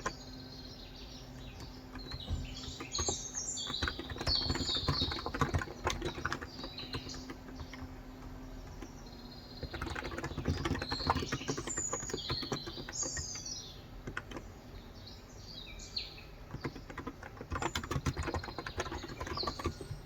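Typing in quick bursts on a Cox Endeavor electrostatic capacitive (Topre-style) tenkeyless keyboard with 35 g switches, dense soft key clicks with pauses between. Birds chirp in the background throughout.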